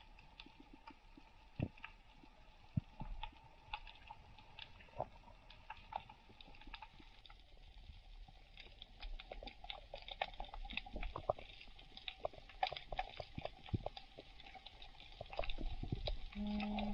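Underwater reef ambience picked up by a diving camera: many scattered sharp clicks and crackles over a faint low rumble. Near the end a steady low hum with overtones sets in.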